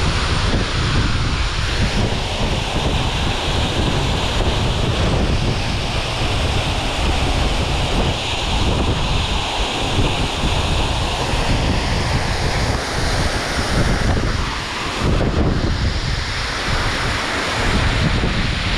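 Steady rush of a tall waterfall, about 50 m high, falling onto rock into a pool, with gusty low rumbling from wind and spray buffeting the microphone.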